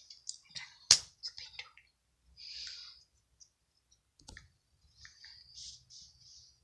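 Butter slime being kneaded by hand: soft, sticky crackling, with a sharp pop about a second in and another about four seconds in.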